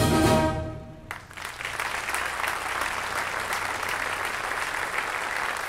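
A wind band's final chord ends on a loud accented hit and cuts off about a second in. The audience then breaks into steady applause.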